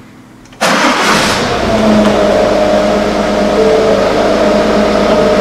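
Ford Mondeo diesel engine starting about half a second in. It catches at once with a short burst of noise, then settles into a steady idle.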